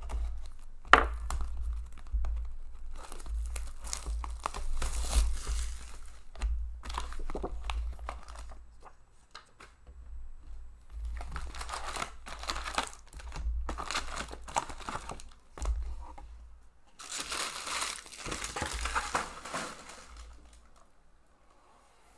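A 2019-20 Upper Deck Series One hockey card box being opened: plastic wrap tearing and foil card packs crinkling as they are pulled out and stacked, in irregular bursts with short pauses, with one sharp click about a second in.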